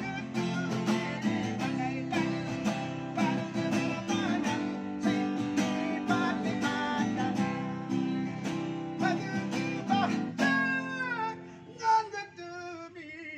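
Acoustic guitar strummed in a steady rhythm. About ten seconds in the strumming thins and a voice sings a long line that glides down in pitch.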